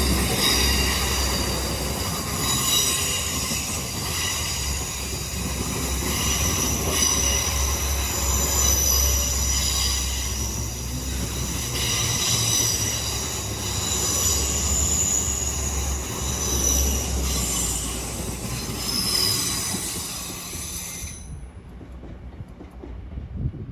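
Train wheels squealing on the rails as a train moves through the station, several high-pitched squealing tones over a low rumble. The squeal cuts off sharply about 21 seconds in, leaving only a faint rumble.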